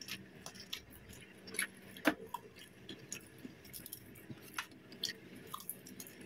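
Close-up eating of crispy fried chicken: faint, scattered small crackles and clicks from chewing and handling the coated chicken.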